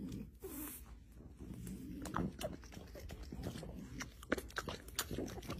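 French bulldog puppy biting and chewing a piece of banana: a run of wet smacking and clicking mouth sounds.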